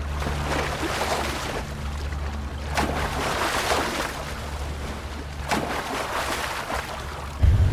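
Rushing, wind-like noise swelling and falling in waves over a steady low hum, with two sharp whooshes; a sudden loud boom breaks in near the end.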